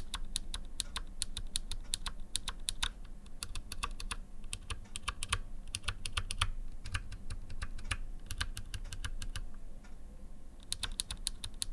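Kailh BOX Royal tactile keyboard switches pressed over and over close to the microphone, a sharp click on each press, several a second with a couple of short pauses. The click is a wear fault: these switches, meant to be non-clicky, have turned clicky over time.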